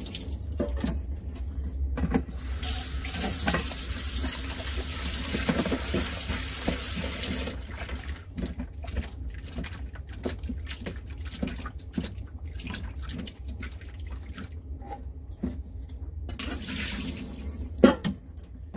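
Squid pieces being rinsed by hand in a stainless steel bowl at a kitchen sink: water sloshing and splashing, with the tap running for several seconds in the first half and briefly again near the end. A single sharp knock comes just before the end.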